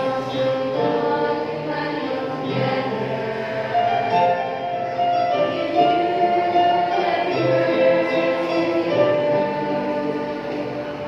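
Mixed youth choir of boys and girls singing a slow Christian song together, holding long notes.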